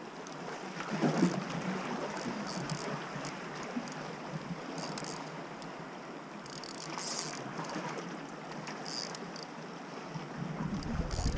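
Fixed-spool spinning reel ticking in short spells as line is wound in or pulled off while playing a fish, over a steady wash of sea on the rocks.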